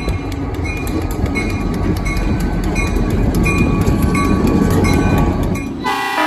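Diesel locomotive rolling along with a steady rumble and wheels clicking over the rails, a light ding repeating steadily. Near the end a loud multi-note locomotive horn starts to blow.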